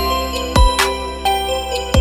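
Electronic background music with a heavy kick drum and a synth melody; the beat pauses briefly in the middle.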